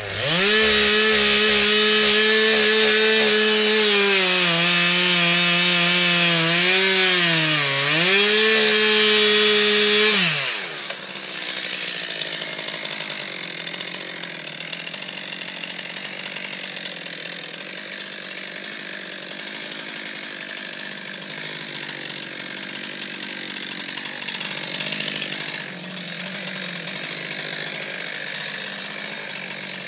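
Stihl two-stroke chainsaw at full throttle cutting into a log, its pitch dipping briefly as it bogs down under load. About ten seconds in the throttle is released, the revs drop away, and a much quieter rough running continues.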